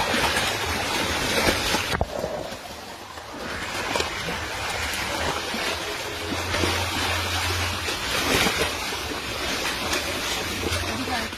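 Rushing, splashing water in a shallow ditch, a steady hiss that dips briefly about two seconds in, with low wind rumble on the microphone.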